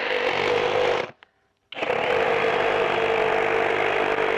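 FLEX 24V cordless reciprocating saw with a bimetal demolition blade cutting through wooden posts. It stops about a second in and starts again half a second later, then runs steadily.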